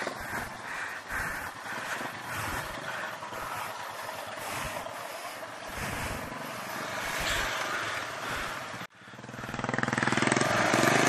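Royal Enfield Himalayan motorcycle engine running at low speed, uneven and mixed with road noise. It cuts off suddenly near nine seconds, and the engine comes back louder and steadier.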